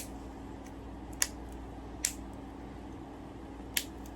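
Four scattered sharp clicks and taps of small tools and wire being handled while building vape coils, over a steady low hum.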